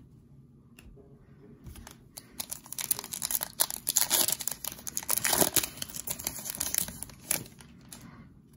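Foil wrapper of a Prizm football card pack being torn open and crinkled by hand: a rapid, dense crackling that starts about two seconds in and stops about a second before the end.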